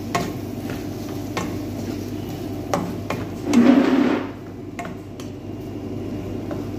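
A wooden spatula stirring chicken and bell peppers in a nonstick wok, with light knocks of wood on the pan every second or so. There is a louder stretch of stirring about halfway through, over a steady hum.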